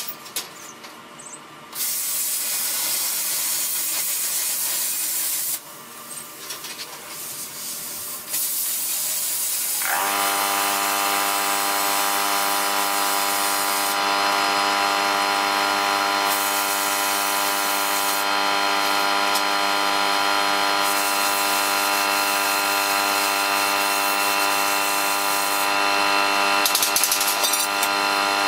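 Compressed air hissing from an air hose in on-and-off blasts. About ten seconds in, an air compressor motor starts up with a short rising whine and then runs steadily, with more air blasts over it.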